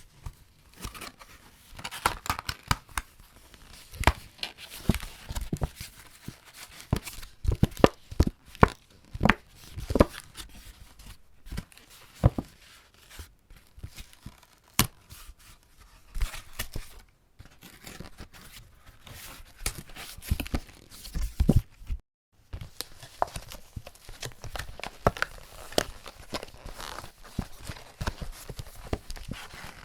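Paper cardboard packaging being twisted by hand, giving dense, irregular crackles and crunches. After a brief silence about 22 seconds in, the packaging is folded, with lighter, steadier crinkling.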